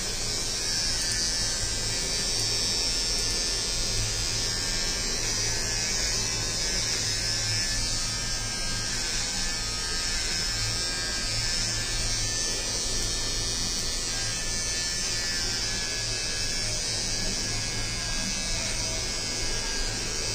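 Cordless electric hair trimmer running with a steady buzz as it cuts short hair at the nape of the neck.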